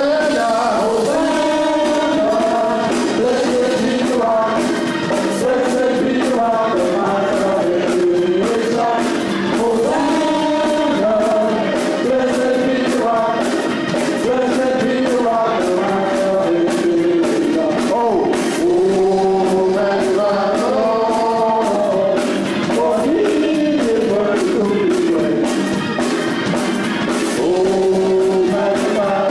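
Gospel worship music: voices singing a flowing melody over instrumental accompaniment, steady in loudness throughout.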